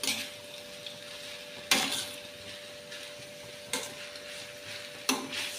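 Spaghetti in tomato sauce sizzling in a frying pan as it is tossed with metal tongs, with four sharp clinks of the tongs against the pan, spread a second or two apart. A steady hum runs underneath.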